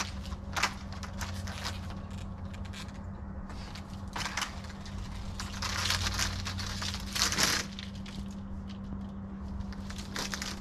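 Scattered rustling and crunching as a coil of yellow plastic gas pipe is unrolled and handled over loose dirt, in a few short bursts with the longest around six to seven seconds in, over a steady low hum.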